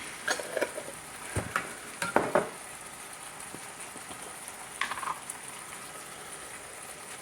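Chicken sizzling steadily as it browns in a multi-cooker pot on the saute setting. A few clusters of knocks and clatters come in the first half, the loudest about two seconds in, and a last one about five seconds in.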